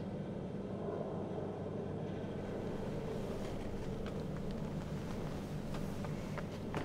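A low, steady hum, with a few soft paper crackles near the end as a sheet is drawn out of an envelope.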